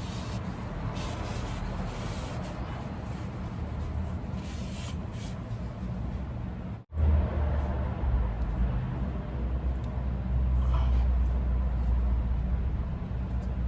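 Steady low machine hum with faint intermittent scraping in the first half. After a sudden break about seven seconds in, a louder steady low hum continues.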